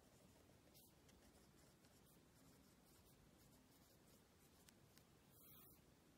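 Faint scratching of a ballpoint pen writing on lined notebook paper, with a soft rub of the hand across the page near the end.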